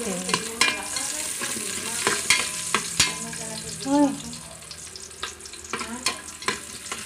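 Garlic sizzling in hot cooking oil as it is sautéed and just starting to brown, stirred continuously with a ladle that clicks and scrapes against the pan. A brief pitched sound about four seconds in.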